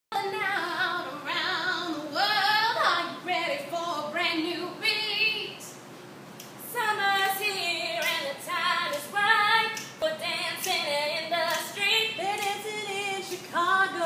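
A woman singing a wavering, melodic line with little or no accompaniment, pausing briefly about halfway through.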